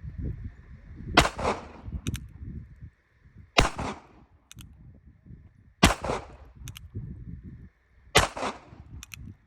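Four single gunshots from a North American Arms Sentinel .22 Magnum mini-revolver, fired about two and a half seconds apart. Each shot is followed a fraction of a second later by a faint double tick.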